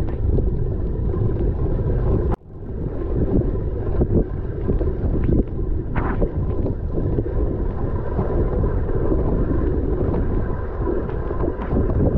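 Wind buffeting the camera microphone of a mountain bike being ridden through mud, with tyre and drivetrain noise. Under it runs a faint steady whine from the bent rear brake disc rubbing against the caliper, whose piston has seized out against the metal backing plates. The sound drops out for an instant about two seconds in.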